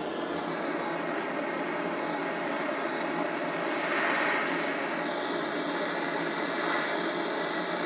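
Handheld gas torch burning with a steady hiss as its blue flame heats scraps of lead in a steel ladle to melt them, getting a little louder about four seconds in.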